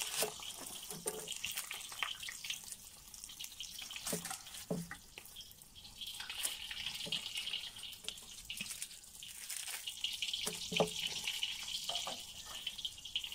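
Meat shanks frying in oil in a kazan: a steady sizzle with fine crackling. A few soft knocks of a knife and onion on a wooden cutting board come through now and then.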